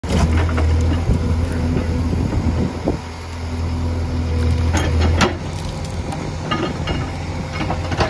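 CASE 851EX backhoe loader's diesel engine running steadily under working load as the backhoe digs and swings. About five seconds in, soil dumped from the bucket pours onto the spoil pile with a few clunks.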